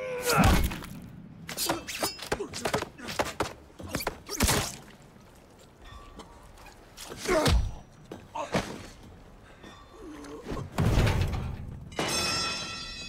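Fight sound effects: a quick series of punch and body-blow impacts with men's grunts, then about twelve seconds in a crash followed by a ringing tone that fades.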